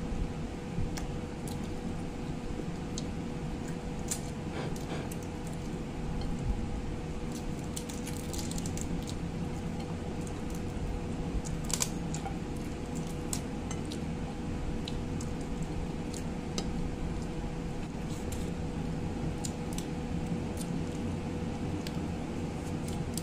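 Cooked crab being picked apart by hand over a plate: scattered small clicks and cracks of shell and fingers against the dish, over a steady low hum with a faint constant tone.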